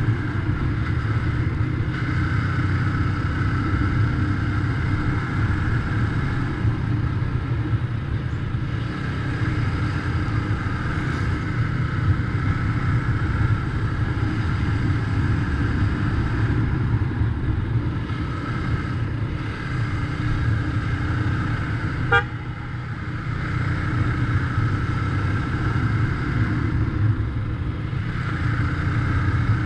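Motorcycle engine running steadily at cruising speed, heard from the rider's seat with road and wind noise. One short horn beep sounds about three-quarters of the way through.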